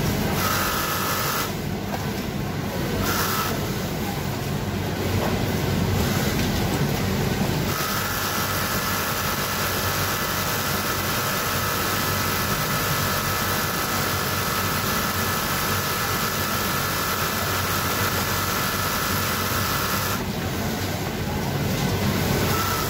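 Brother twin-needle lockstitch sewing machine stitching a shirt collar band. It runs in a couple of short bursts, then in one long steady run of about twelve seconds, which stops near the end. A steady background din of a garment factory floor runs underneath.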